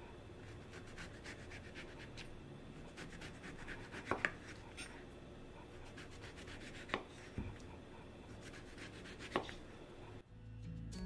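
Kitchen knife cutting the peel off a whole orange on a wooden cutting board: a steady scratchy slicing sound with many small ticks and a few sharper clicks, about four, seven and nine seconds in. Music begins about a second before the end.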